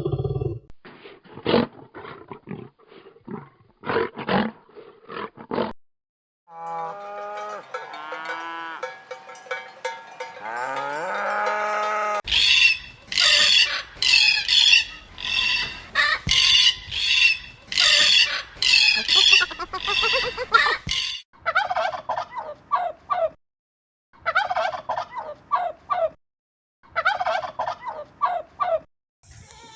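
A string of farm animal calls, poultry among them: short clicky calls at first, then drawn-out calls that glide upward in pitch, then a loud run of calls about two a second, then short groups of calls.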